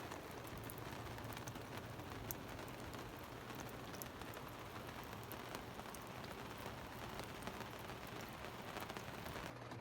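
Campfire crackling: a faint, steady hiss with many small scattered pops.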